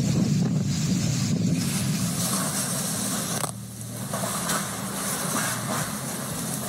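Hurricane wind and heavy rain blowing hard across a phone's microphone, a steady rushing with low buffeting. About halfway through it cuts to another recording of the storm with a hissier wind-and-rain noise.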